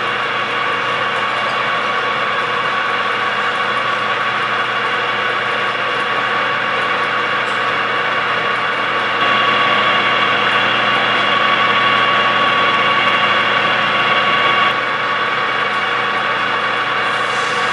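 Birmingham YCL-1236GH 12 x 36 engine lathe running under power, its spindle and geared head turning with a steady whine. It gets louder about halfway through and drops back a few seconds later.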